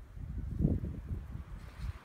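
Wind buffeting the microphone in uneven gusts, a low rumble strongest about half a second in.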